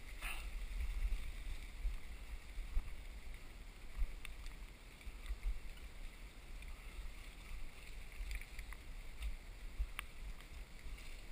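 Low, uneven wind rumble on the microphone outdoors, with a few faint clicks; the sharpest click comes about ten seconds in.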